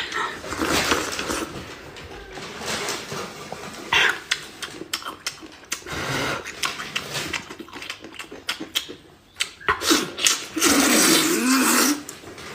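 A person eating close to the microphone: wet chewing and slurping mouth sounds with small clicks, coming and going irregularly.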